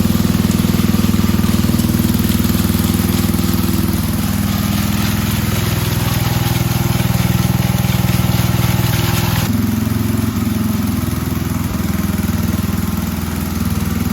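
An engine running steadily at a constant speed. About nine and a half seconds in, it changes abruptly to a slightly different steady engine sound.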